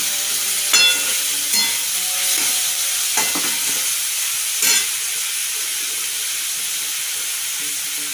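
Onions and tomatoes sizzling steadily in hot oil in a kadai as they are sautéed, with a few sharp knocks of the stirring spoon against the pan in the first five seconds.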